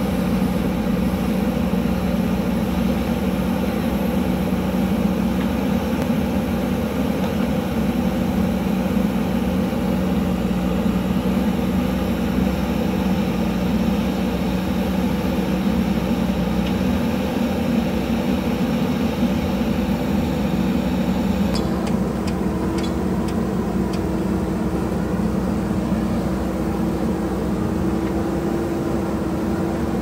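JCB 3DX backhoe loader's diesel engine running steadily while its backhoe arm digs a trench. A few light clicks come in over the last third.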